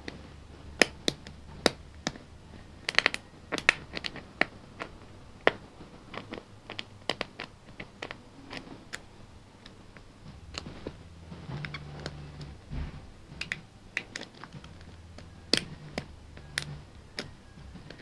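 Metal hook pick clicking and scraping against the pins inside a brass padlock's keyway while a tension wrench holds the plug: irregular sharp clicks, some in quick clusters, as the lock is picked.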